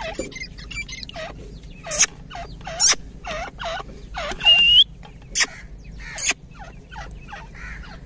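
Grey francolins and their chicks calling: a string of short, downward-sweeping chirps, about two a second, with a single rising whistle about halfway through and a few sharp clicks.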